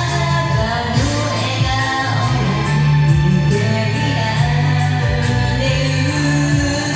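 Music with singing: a karaoke backing track with a steady bass line and a voice singing over it.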